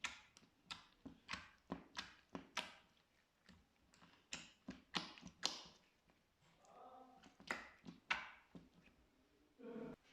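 Slime being pressed and squeezed by hand, giving an irregular run of sharp sticky pops and clicks, with two longer squelching sounds, one about seven seconds in and one near the end.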